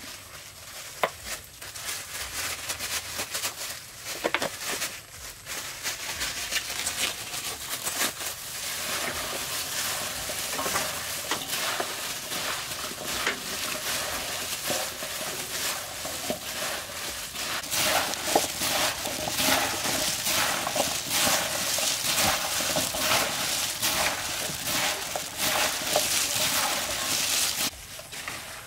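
Plastic-gloved hands tossing and mixing strips of watermelon rind in a large stainless steel bowl. It is a dense crackling rustle full of small clicks, louder in the second half, and it cuts off abruptly shortly before the end.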